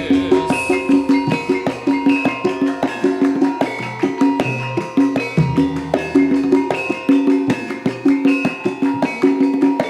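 Javanese gamelan playing an instrumental passage: struck bronze keyed instruments ring out quick repeated notes over drum strokes in a steady, even rhythm.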